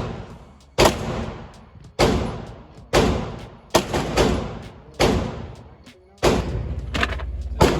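Gunshots fired one after another, about seven shots roughly a second apart, each a sharp crack followed by an echo that fades before the next, as in an indoor range.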